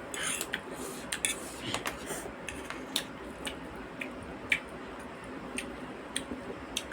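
Eating sounds: scattered light clicks and taps of cutlery against dishes, mixed with soft chewing and squishing.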